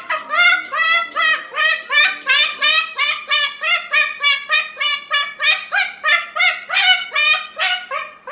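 A bird calling over and over in a fast, even series, about three calls a second, each call bending up and then down in pitch.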